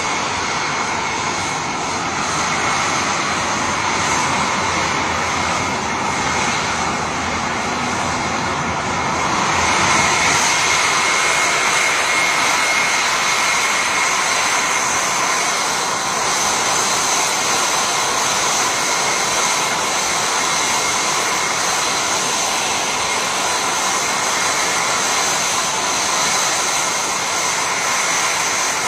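Jet aircraft engine running with a steady loud roar and a high whine, getting a little louder about ten seconds in.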